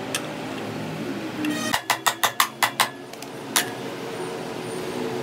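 A quick run of about six sharp knocks, then a single one about a second later, over a steady hum.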